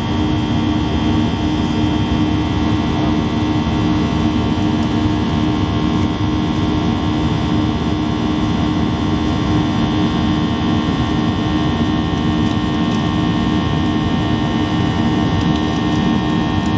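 Cabin noise aboard a Boeing 737-800 climbing after takeoff: its CFM56-7B turbofan engines run steadily at climb thrust, heard inside the cabin as a loud, even rush with a steady low hum.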